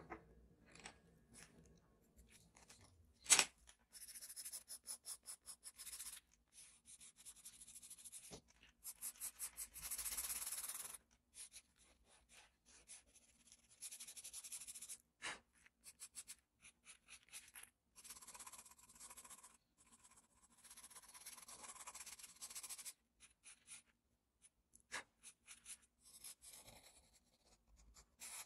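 Charcoal pencil scratching on paper in runs of quick back-and-forth shading strokes. There are two sharp taps, one about three seconds in and one midway.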